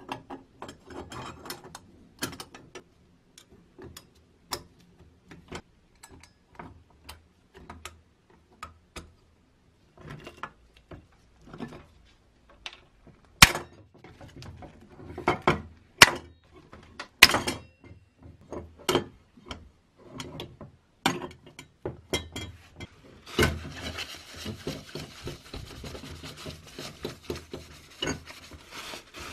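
Small metal trap parts clicking and knocking as they are handled, and a hand pop-rivet tool being squeezed to fasten the pan plate, with three sharp snaps near the middle as the rivet mandrels break off. For the last five seconds or so a rough scraping noise runs continuously.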